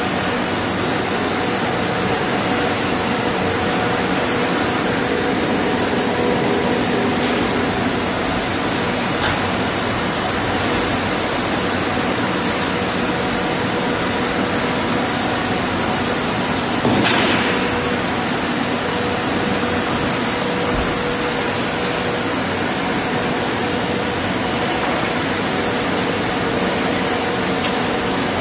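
Steady loud machinery noise of a meat-plant boning room: conveyor lines and plant equipment running with a faint steady hum, and a single clank a little past halfway.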